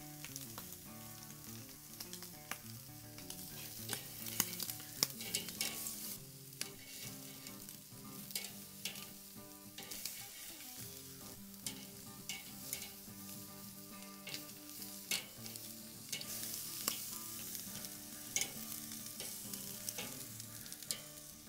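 Shrimp and andouille sausage skewers sizzling on the grate of a charcoal grill, with sharp crackles and clicks throughout as metal tongs turn the skewers.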